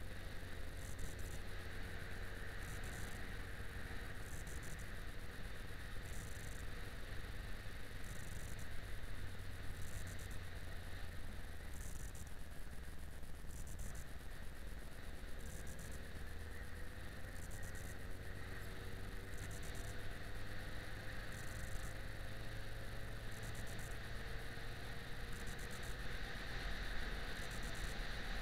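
Yamaha XJ6 Diversion's 600 cc inline-four engine running as the motorcycle rides along, its note climbing slowly as it gathers speed, twice, under steady wind and road noise. A faint high hiss pulses about once a second.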